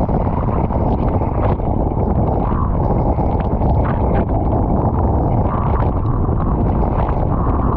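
Wind buffeting the microphone in a steady low rumble over water rushing along the hull of an International 14 skiff planing fast in strong wind, with brief hisses of spray breaking off the bow.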